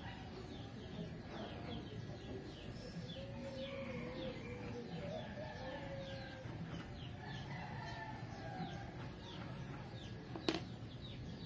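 Birds chirping in quick, repeated short falling notes throughout, with a longer wavering call a few seconds in and a single sharp click near the end.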